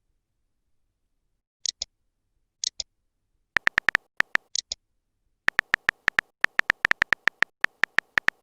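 Chat-app sound effects: a few short double pops about a second apart, then from about three and a half seconds in, a rapid run of sharp clicks from a phone-keyboard typing sound.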